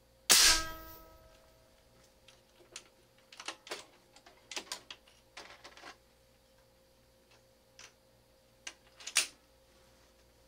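A single shot from a .357 big bore unregulated PCP air rifle about a third of a second in, with a ringing tail. Then the clicks and clatter of the breech being worked and reloaded, ending in one sharp clack near the end.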